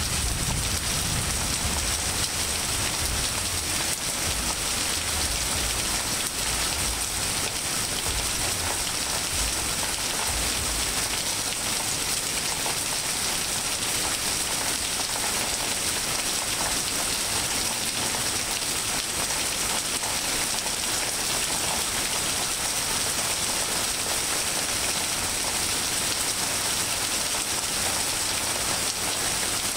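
Steady rain from a summer rainstorm falling on leaves, grass and pavement, an even hiss. A low rumble of thunder dies away over the first ten seconds or so.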